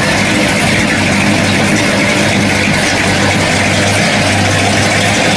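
Engine of a late-1930s Chevrolet coupe street rod running at low speed as the car rolls slowly past, a steady low rumble with no revving.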